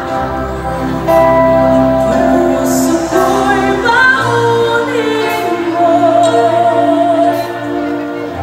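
A live band playing, with women singing long held notes into microphones over electric guitar, drums and keyboards.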